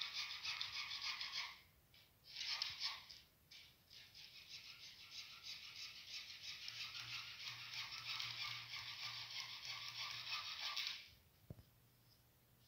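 Hacksaw cutting through orange PVC drain pipe: a steady scratchy rasp of quick strokes. It breaks off briefly twice in the first few seconds and stops near the end.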